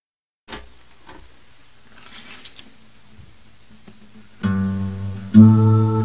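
Faint room noise with a few small clicks, then about four seconds in an acoustic guitar starts playing low, ringing notes, with a louder note struck about a second later.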